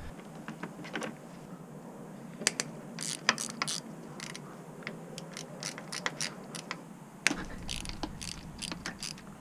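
Hand ratchet clicking in short runs of quick clicks, loosening the fasteners that hold the carburettors on.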